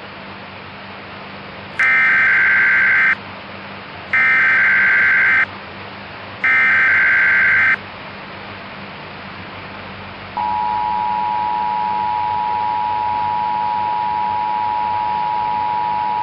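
Emergency Alert System tones for a severe thunderstorm warning: three short buzzing bursts of SAME header data, then, about ten seconds in, the steady two-tone attention signal. A constant static hiss runs underneath.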